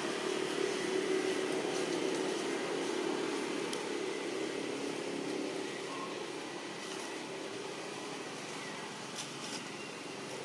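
Steady motor hum, loudest in the first few seconds and slowly fading, with a few light clicks near the end.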